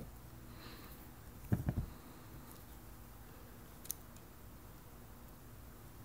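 A few dull knocks in quick succession about a second and a half in as the heavy metal bar is turned and set down on its side on the plastic-covered bench, then a single light click from the digital caliper about four seconds in.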